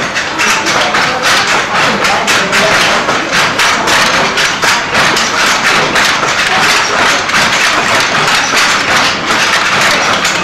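Wooden handloom clattering as it weaves: a fast, continuous run of sharp wooden knocks, several a second, from the shuttle being flung by its pull cord and the beater striking the cloth.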